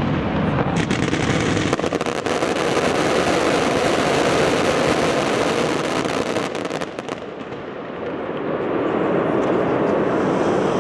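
Fireworks display: a dense run of crackling and bangs from bursting shells and crackle effects, easing briefly about seven seconds in before a steady rushing noise rises again.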